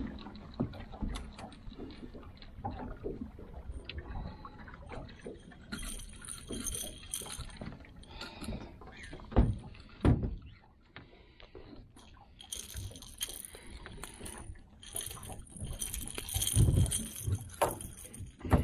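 A catfish being landed and handled in a boat: clatter and knocks of tackle and a dangling planer board, bursts of splashing and dripping water, and a couple of heavy thumps, about nine seconds in and again near the end.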